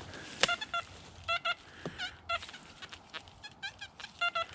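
Metal detector giving clusters of short, pitched target beeps, some bending slightly in pitch, as it passes over several buried metal targets in a junk-filled spot. One sharp knock comes about half a second in.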